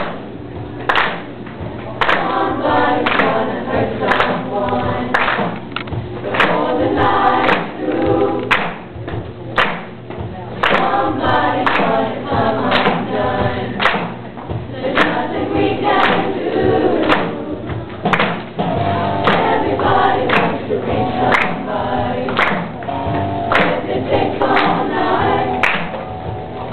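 Eighth-grade show choir singing a rock-and-roll number in unison over a steady beat.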